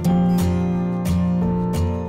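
Background music: acoustic guitar strumming chords to a steady beat.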